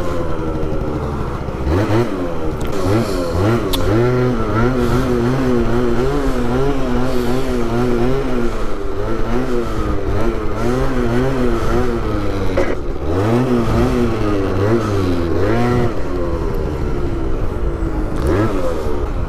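Small two-stroke scooter engine revving up and down as the throttle is worked, its pitch rising and falling in quick waves and twice dropping away and climbing back.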